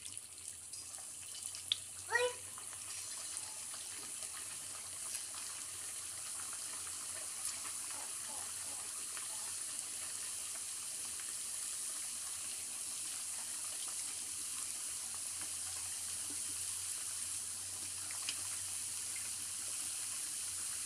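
Paneer kofta balls deep-frying in hot oil: a steady sizzle and bubbling that grows slightly louder as more koftas go into the pan. A brief sharp sound about two seconds in.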